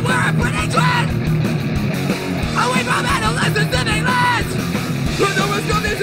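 A punk rock band playing live at full volume, with yelled vocals over distorted guitars and drums.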